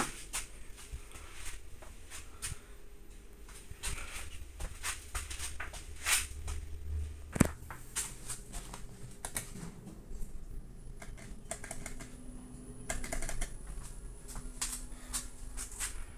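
Low hum of a Mitsubishi Nexiez machine-room-less elevator car in travel, heard from inside the car, under a scatter of irregular clicks and rustles, with one sharp click about seven seconds in.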